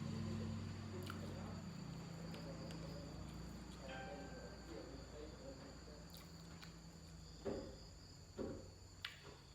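Crickets chirring steadily in the background, with a low hum fading out over the first few seconds and a few short soft knocks near the end.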